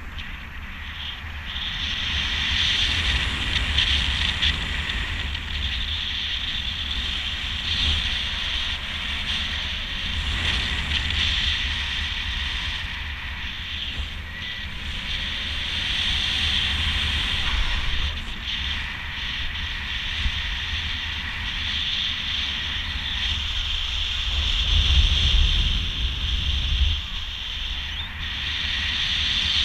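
Wind rushing over the microphone in speedflying flight: low buffeting with a steady airy hiss, swelling a little about 25 seconds in.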